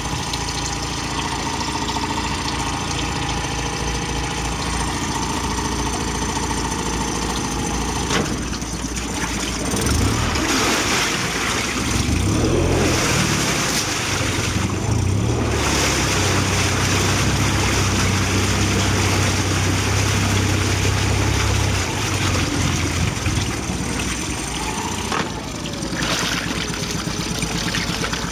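2006 Mercury 9.9 hp four-stroke outboard running in a water test tank. It idles steadily, is revved up about ten seconds in with the propeller churning the tank water, holds at the higher speed for several seconds, then drops back to idle about three-quarters of the way through.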